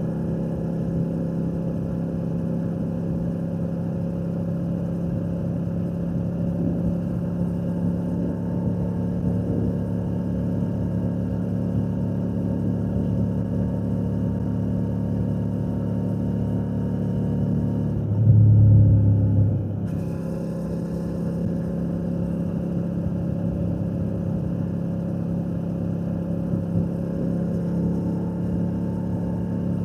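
Royal Enfield Shotgun 650's parallel-twin engine and exhaust running steadily at cruising speed. About two-thirds of the way through, a louder low rumble lasts about two seconds while the engine note slides down.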